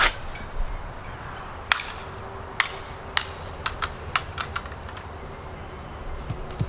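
A string of sharp, irregular clicks, a few louder ones in the first half and smaller ones after, over a faint steady hum.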